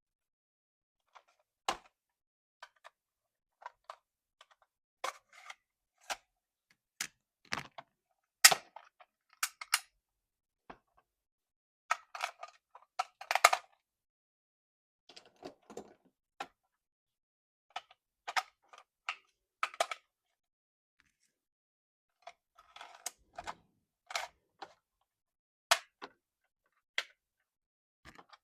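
Irregular short clicks and brief plastic crackles from hands handling a plastic toy and its packaging, with near silence between them. A few sharper clicks stand out, the loudest about eight and a half seconds in and again near thirteen seconds.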